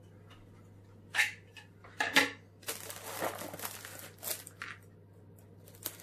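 Cardboard box of frozen oven chips being forced open: a few sharp knocks, then about two seconds of scratching and tearing of stiff card. The box is sealed very strongly.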